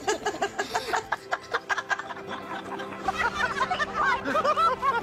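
People laughing in quick repeated bursts, several voices overlapping in the second half, over background music that brings in a held low chord about three seconds in.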